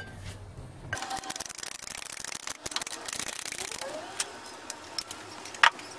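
Bearing being pressed out of a ZF power steering box housing with a socket in a shop press. About a second in, dense crackling and creaking starts and runs for some three seconds as the bearing gives, then two sharp metallic clicks follow.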